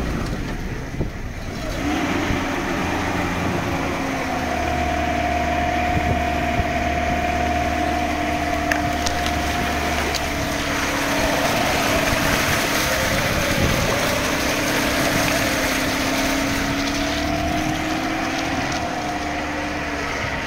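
Lada Niva engine running under load, a steady drone setting in about two seconds in, its pitch wavering slightly as the car pushes along a muddy, waterlogged track. A continuous rushing noise of tyres in mud and water lies under it.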